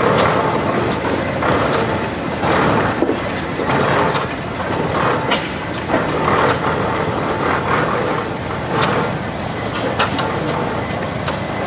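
1909 Case 20-horsepower steam tractor under way, its exhaust puffing unevenly over mechanical clatter and sharp clicks.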